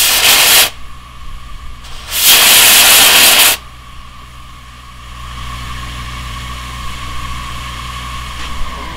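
Steam venting in two loud hissing blasts from a 7.5-inch gauge Alco-style 4-8-4 Northern live steam locomotive: a short blast under a second long, then a longer one of about a second and a half starting about two seconds in. A quieter steady hiss continues afterwards.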